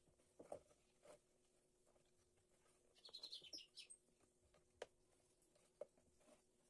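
Faint knocks and clicks of small wooden box pieces being handled and fitted together on a workbench. A short run of faint, high bird chirps comes about three seconds in.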